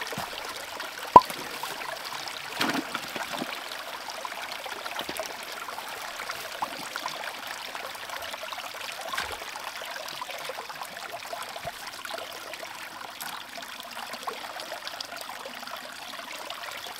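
Shallow creek water trickling and pouring steadily, including water running out of a bucket's outlet fitting into the stream. A single sharp click about a second in.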